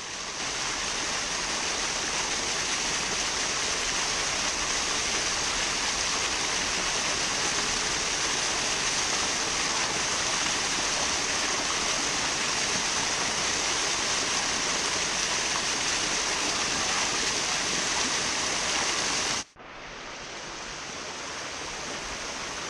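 Small waterfall cascading over rocks into a stream: steady rushing, splashing water. It breaks off abruptly about three-quarters of the way through and resumes slightly quieter.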